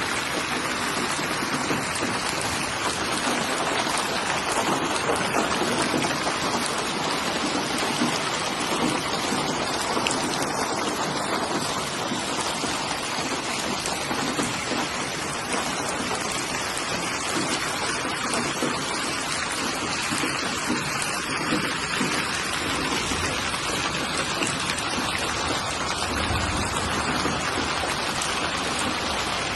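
Steady rainfall, drops pattering on a surface, with a brief low rumble near the end.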